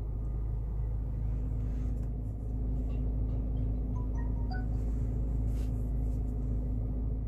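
Steady low rumble of a car idling, heard from inside the cabin, with a few faint short chirps about four seconds in.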